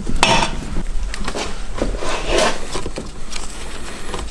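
Scattered clicks, knocks and short scrapes of hand tools and metal parts being handled on a car engine while a timing-belt locking tool is fitted.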